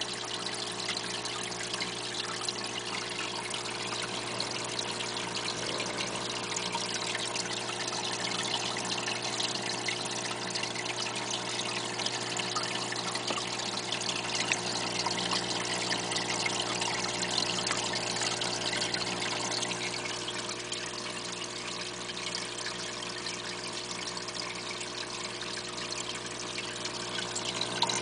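Aquarium water trickling and splashing steadily, over a low, steady hum.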